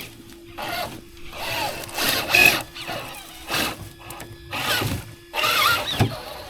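RC off-road car driving over rough terrain in repeated short bursts of throttle, its motor whirring up and dropping back about once a second.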